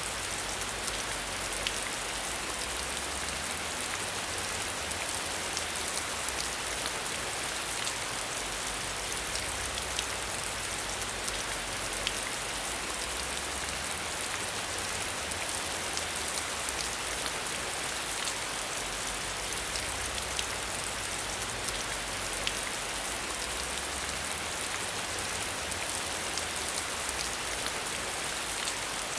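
Steady rain falling, an even hiss of many fine drop ticks that keeps up without pause.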